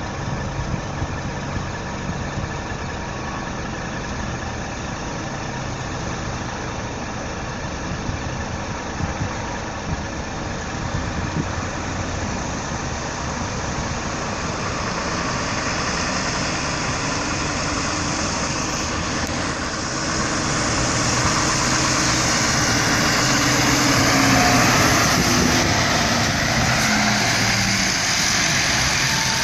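Scania lorry's diesel engine running at low revs, growing louder as the truck approaches and drives past close by. Its engine note drops as it goes by, with tyre noise from the wet road.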